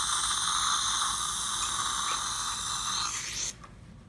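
Slow-speed dental implant surgical handpiece drilling into the jawbone without water irrigation: a steady high whine made of several pitches. It cuts off about three seconds in.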